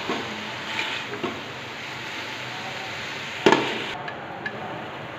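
Chopped vegetables sizzling in a hot aluminium pot as a spatula stirs them, with scraping and small clicks and one sharp knock of the spatula against the pot about three and a half seconds in.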